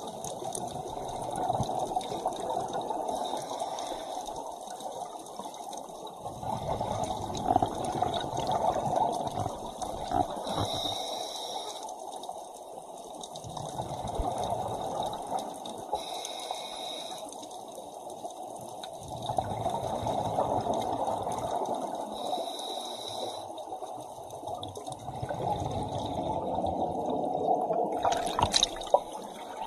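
Scuba diver breathing through a regulator underwater: a rush of exhaled bubbles about every six seconds, with a thin hissing inhale between them, and a sharp click near the end.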